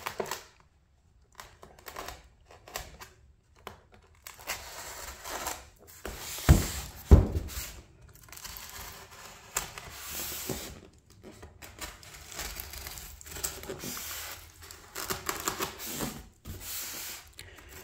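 Box cutter slitting packing tape along the seam of a styrofoam box, with irregular scraping, rubbing and tearing as the blade and hands work along the foam. Two dull thumps about six and seven seconds in.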